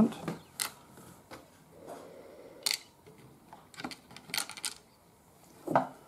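Light metallic clicks and taps of small screws and the metal lock housing being handled on a tabletop. There is a sharper click just before halfway and a quick run of several clicks later on.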